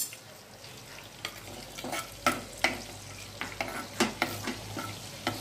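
A metal spoon stirring whole spices in hot oil in a clay pot, scraping and knocking against the pot in a run of irregular strokes that start about a second in. Under it the spices fry with a faint sizzle.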